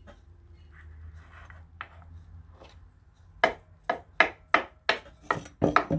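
Chef's knife chopping hard-boiled eggs on a wooden board: a quiet stretch, then from about halfway through a run of sharp knocks of the blade on the board, about three a second.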